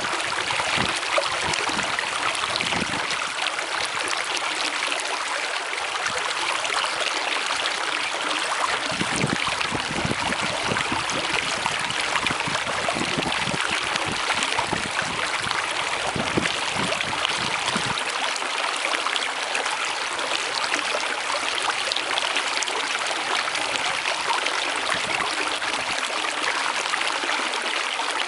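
Running water, like a stream flowing steadily. Deeper gurgling gushes come through from about 9 to 18 seconds in.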